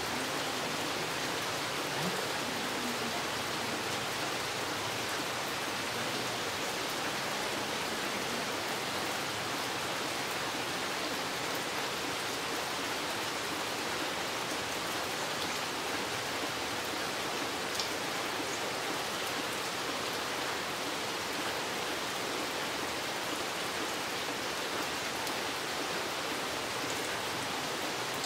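Steady rain falling in a forest: an even hiss of drops, with the odd louder single drip standing out.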